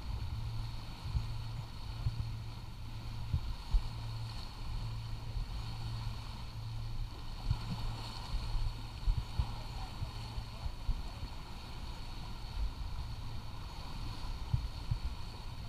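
Wind noise on the microphone aboard a sailing boat: a steady low rush with a few soft thumps and a faint steady high tone.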